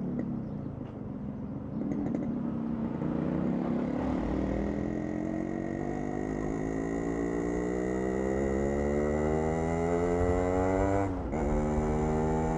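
Motorcycle engine running under acceleration, its pitch climbing slowly and steadily for several seconds. About eleven seconds in it dips sharply, then holds a steady pitch.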